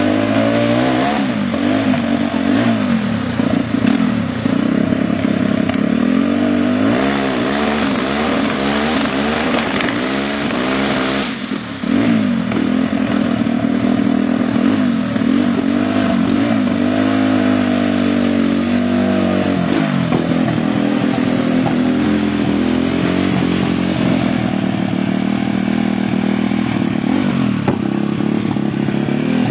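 Turbocharged Yamaha Raptor 700 quad's single-cylinder engine revving hard, its pitch wavering up and down as the rear tyres spin in a burnout. About twenty seconds in the sound cuts to a steadier, even engine run.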